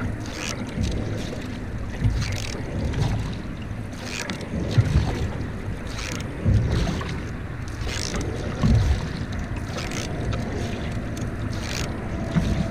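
Single-blade canoe paddle strokes pulling through calm water, one about every one and a half to two seconds, each a splash with a low thump, over wind rumble on the microphone.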